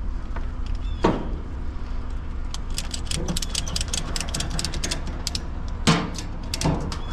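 Pickup truck on the move: a steady low engine and road rumble, with a sharp knock about a second in, a run of fast clicks for about three seconds in the middle, and two more knocks near the end.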